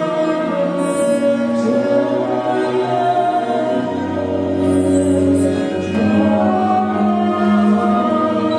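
A choir and orchestra performing live. Voices hold long notes over strings, and the harmony shifts every couple of seconds.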